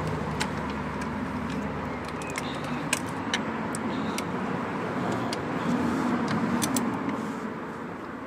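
Light metallic clicks of a 13mm spanner being fitted to the auxiliary drive belt tensioner, over a steady background rumble.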